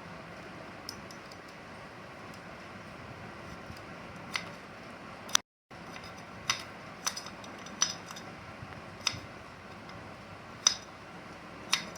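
Hand tools clinking and tapping on metal engine parts of an opened motorcycle engine: about ten sharp, irregular clinks over a steady low background hiss, with a brief gap about five and a half seconds in.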